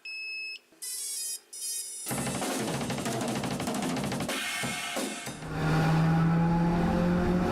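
Intro music with a drum kit and cymbals, preceded by a few short electronic tones in the first two seconds.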